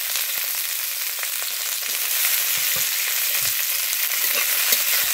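Carrot strips and cut green beans sizzling in hot mustard oil in a metal kadai. A metal spatula stirs them, with scattered light scrapes and ticks against the pan.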